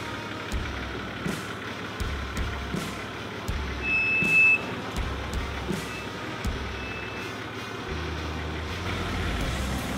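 A 4WD truck crawling over a rough track, with a low engine and drivetrain rumble and scattered knocks. High electronic warning beeps sound from the vehicle: a longer one about four seconds in, then a few short ones.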